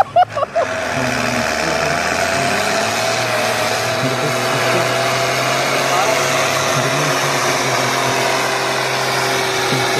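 A tractor's diesel engine working hard under full load as it drags a pulling sled, a steady, dense drone that holds its pitch. A few short loud knocks come right at the start.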